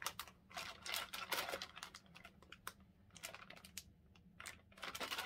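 Plastic candy packet crinkling as it is handled and turned over in the hands: irregular small crackles, thickest in the first second and a half and again near the end.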